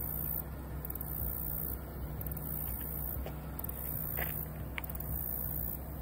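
Steady low hum of a running engine, with a few faint clicks about four seconds in.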